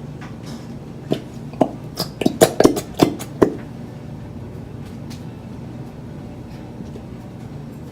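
A quick run of about ten light knocks and clicks, close together, from a plastic glue bottle and bowl being handled. A steady low hum lies underneath.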